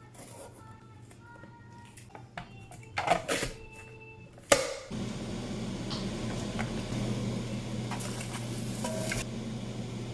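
Kitchen handling: scattered clicks and knocks, then one sharp knock. Right after it an electric kitchen appliance starts and runs with a steady low hum and fan noise to the end.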